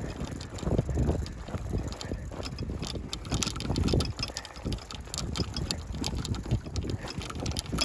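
Wind buffeting the microphone, an uneven gusting rumble, with scattered light clicks and rustles.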